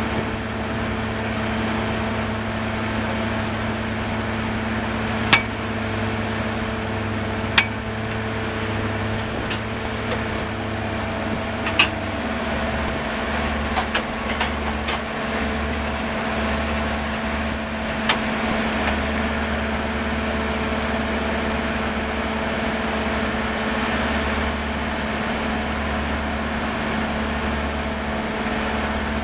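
Caisson core drilling rig running steadily with a constant engine drone. Its low note shifts about twelve seconds in, and a few sharp knocks stand out, the loudest about five and eight seconds in.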